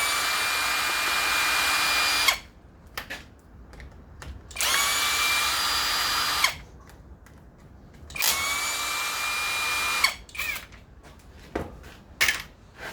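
Power drill-driver with a Torx bit spinning in three bursts of about two seconds each, a steady whine that spins up quickly at the start of each burst, backing screws out of a string trimmer's housing. Small clicks and handling noises fall between the bursts.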